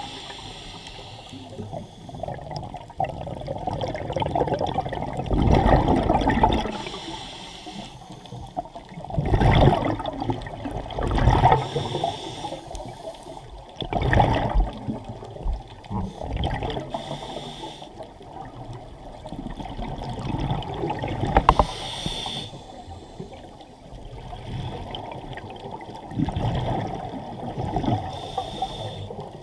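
Scuba diver's regulator breathing heard underwater: rushing, bubbling exhalations surging every few seconds over a steady wash of water noise.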